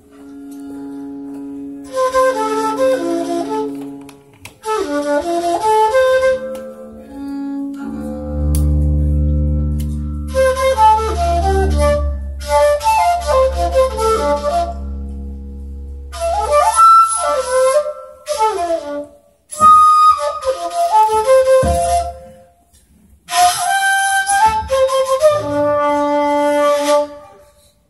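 Shakuhachi playing breathy, quick runs of notes in phrases of a few seconds with short pauses between, over a bowed double bass holding low sustained notes, deepest and strongest through the middle.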